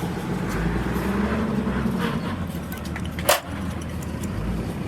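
A motor vehicle's engine running with a steady low rumble, with one sharp knock about three seconds in.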